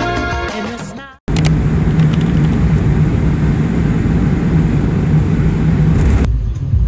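Background music fades out, then after a brief silent cut comes the steady engine and road rumble of a moving vehicle.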